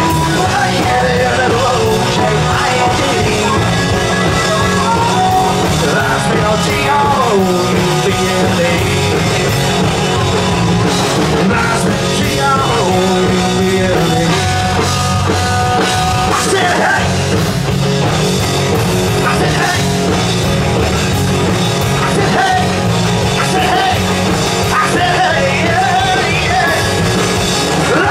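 Live country-rock band playing loud and steady: drums, electric guitars and bass, with a harmonica over the top, in an instrumental stretch of a song.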